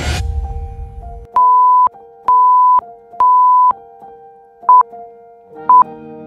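Synthesized game-show sound effects over a steady synth music bed: three long electronic beeps about a second apart, then short beeps once a second from the quiz's countdown timer. A bass line joins the music near the end.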